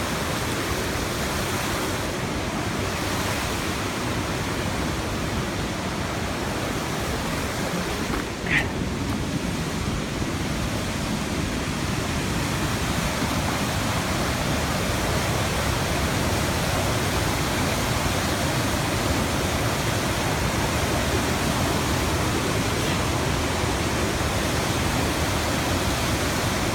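Fast-flowing floodwater rushing past, a steady, even noise. A brief high squeak sounds once, about eight and a half seconds in.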